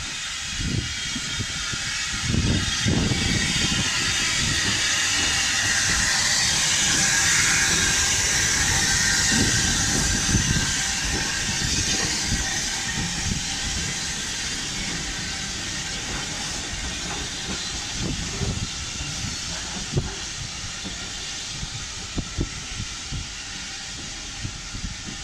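Hawthorn Leslie 0-6-0 saddle-tank steam locomotive hissing steam as it runs in with its coaches rolling past. The hiss is loudest about a third of the way in and then slowly fades, over irregular low knocks from the train.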